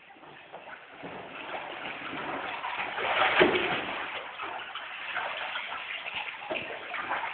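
Water splashing and sloshing in a baptistery as a person is lowered backward under the water and raised again, loudest about three and a half seconds in.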